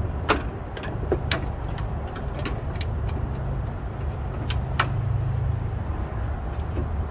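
Scattered sharp clicks and knocks of metal and plastic parts as a replacement radiator and its upper radiator support are test-fitted by hand into a Honda Civic's front end. The loudest come about a third of a second in, just over a second in, and twice close together between four and a half and five seconds, over a steady low rumble.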